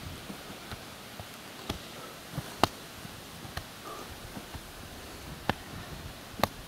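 Spades digging heavy clay soil: about half a dozen sharp clicks at irregular intervals as the blades strike and cut the ground.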